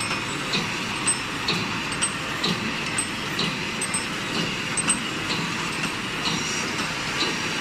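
Automatic welded wire mesh machine running: a steady mechanical clatter with a sharp clack about once a second.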